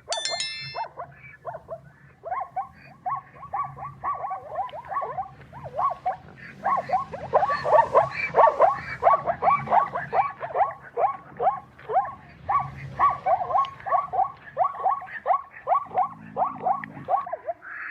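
An animal calling in a long, rapid string of short calls that drop in pitch, about three a second, loudest in the middle stretch.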